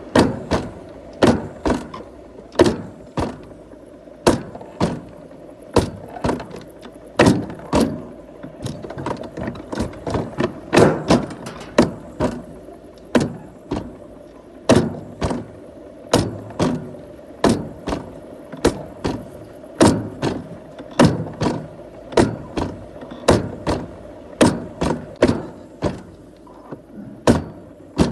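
Moving vehicle: a steady running hum with sharp clacks and knocks every half second or so, irregularly spaced.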